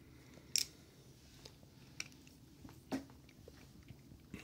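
Plastic parts of a Somfy tubular awning motor clicking and knocking as they are handled and fitted together by hand: a few short sharp clicks, the strongest about half a second in, others at about two and three seconds.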